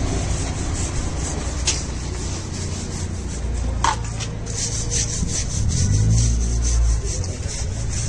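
Rhythmic scrubbing on a new BFGoodrich all-terrain tyre's rubber sidewall, quick strokes about four a second, as the blue protective coating is washed off the raised white letters.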